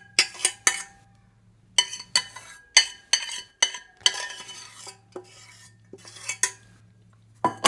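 Spoon clinking and scraping against a pot and bowl while scooping cooked flaxseed gel: a series of sharp clinks with brief ringing, and a rougher scrape about four seconds in.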